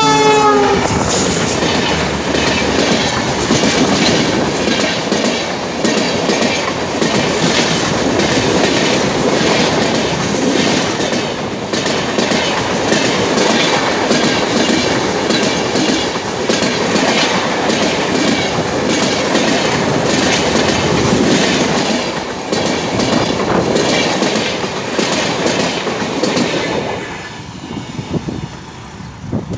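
Rajdhani Express coaches passing at speed behind a WDP4B diesel locomotive: steady wheel rumble with a fast clickety-clack of wheels over rail joints. At the very start, the locomotive's horn drops in pitch as it passes. Near the end the clatter fades as the train moves away.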